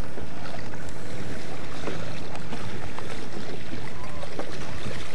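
Steady wind and water noise aboard a sailboat, with wind rushing over the microphone.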